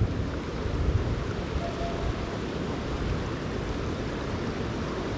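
Steady rushing of a river running high and fast, heaviest in the low range.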